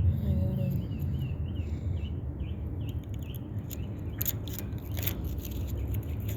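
Small birds chirping repeatedly over a low steady hum, with a few sharp clicks and scrapes about four to five seconds in.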